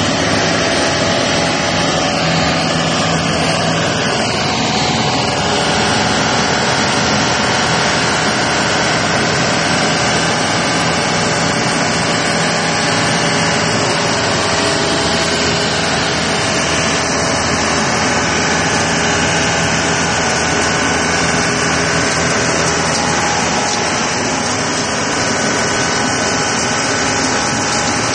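5000 L Dongfeng road sweeper truck at work: its engine and suction fan running with a steady, loud rush of air and several steady tones while the brush and suction nozzle pick grit off the concrete.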